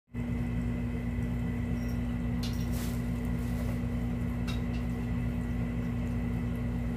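Electric pet water fountain running: a steady pump hum with water trickling from its flower-shaped spout, and a few soft clicks of cats lapping the water.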